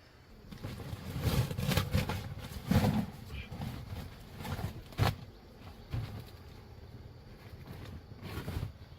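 Irregular rustling and crunching, as of someone moving through dry brush and leaves over rocky ground, with a sharp knock about five seconds in.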